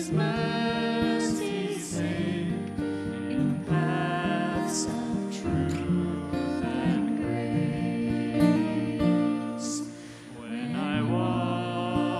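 Acoustic guitar played as accompaniment to a sung song, with a short lull near the end.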